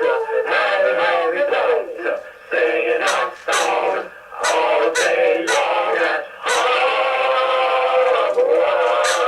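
Voices singing the puppets' chanted song in short phrases, then one long held note from about six and a half seconds in that stops near the end.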